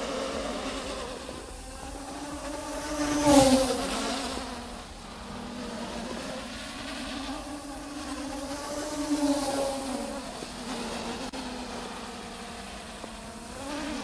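Traxxas Aton quadcopter's motors and propellers buzzing in flight, the pitch rising and falling as it manoeuvres. The buzz swells loudest about three seconds in and again around nine seconds.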